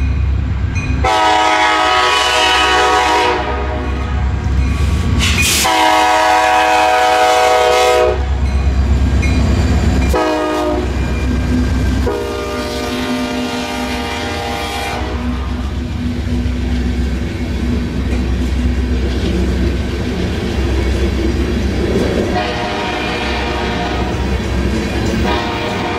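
Air horn of a KCS SD70MAC diesel locomotive sounding a long, long, short, long pattern, the grade-crossing signal, as the lead units pass close by with the low rumble of their diesel engines. Ballast hopper cars then roll past with wheels clacking over the rail, and the horn sounds once more, fainter, near the end.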